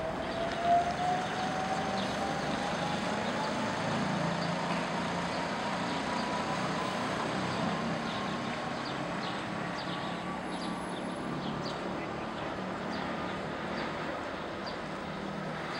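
Yellow-and-green electric rack-railway train of the Wengernalpbahn accelerating, its motor whine rising slowly and steadily in pitch over a low rumble. A short loud knock comes about a second in, and light ticks come near the end.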